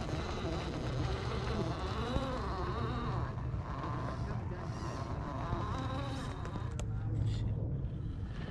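Whine of the Axial SCX10 III RC crawler's brushed 540 motor and gears as it crawls over rocks, the pitch rising and falling with the throttle.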